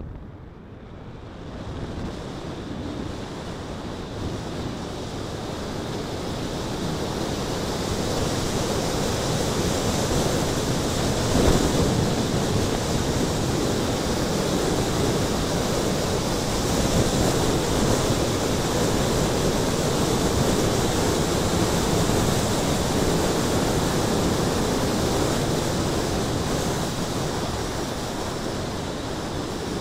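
Airflow rushing over the camera's microphone on a paraglider in flight. It builds over the first several seconds, then stays loud and steady, the sound of the fast descent in a steep spiral.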